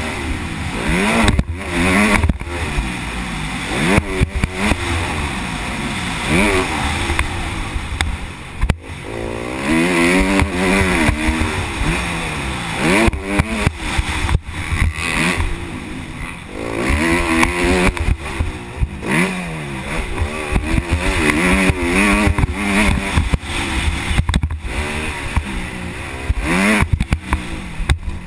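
Motocross dirt bike engine heard on board, revving up and falling off over and over as the rider accelerates, shifts and rolls off around the track. Short knocks and clatter come from the bike over rough ground.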